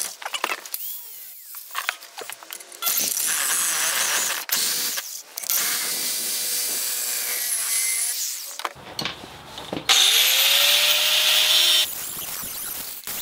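Reciprocating saw cutting through a 3/16-inch-thick metal bracket clamped in a bench vise, in several stretches with short breaks between. About ten seconds in, the saw spins up with a rising pitch into its loudest stretch of cutting.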